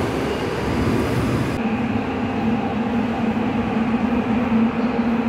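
Metro train sounds at a station platform: a dense rumble, then, from about a second and a half in, a steady low hum from a standing train.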